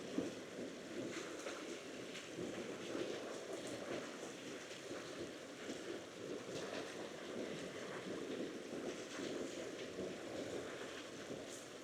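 Steady rushing wind noise during a forest walk, with faint, irregular crunching steps on the path.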